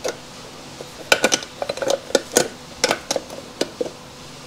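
Kawasaki F7 headlight's chrome rim and glass lens clicking and clinking against the metal headlight shell as it is pressed and worked into place: a quick irregular run of sharp clicks starting about a second in, with a louder knock at the end.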